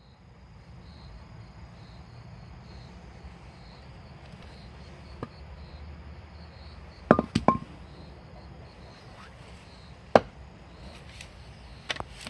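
Blade of a Bark River Trakker, a large fixed-blade knife, chopping into wood: a few sharp knocks, with a quick cluster of three about seven seconds in and a single loud blow around ten seconds. Insects chirr steadily in the background.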